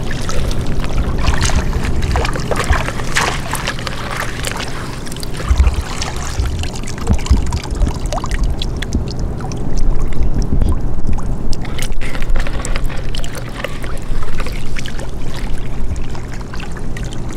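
Shallow stream water splashing and trickling as a hand net is swept through it, with irregular small splashes throughout.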